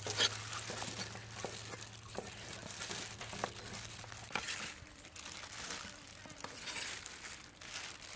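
Large knife slicing beef honeycomb tripe on a wooden chopping block: scattered light taps of the blade on the board amid a crinkling rustle.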